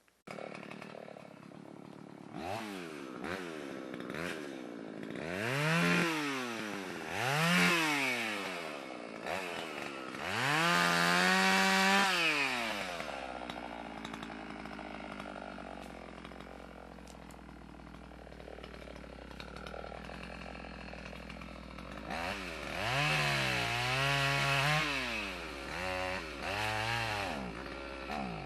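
Gas chainsaw engine being revved up and down again and again, held high for a second or two at times, and dropping to a lower, quieter running between the blips.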